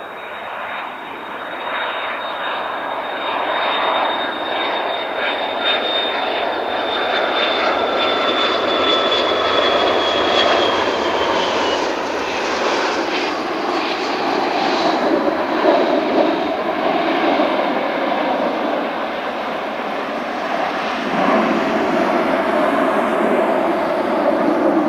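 McDonnell Douglas MD-82 jet airliner, with its rear-mounted Pratt & Whitney JT8D turbofans, landing. A high engine whine slowly falls in pitch and fades about twelve seconds in, while a broad rumble grows louder as the jet touches down and rolls out, rising again near the end.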